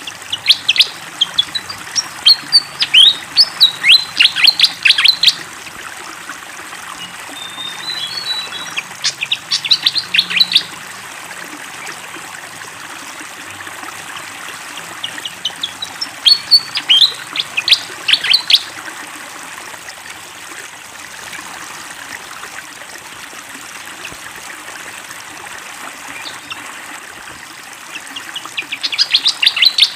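Fantail (sikatan kipas) singing in four bursts of quick, high chirping notes, each a few seconds long with pauses of several seconds between, over a steady rush of flowing water.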